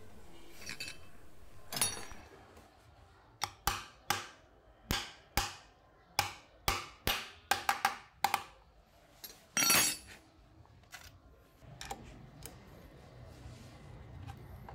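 A metal rod tapping the aluminium plate being seated over the crankshaft of a Honda Wave S100 engine: about a dozen sharp metallic taps, a few a second, then one louder, longer clatter a little past halfway.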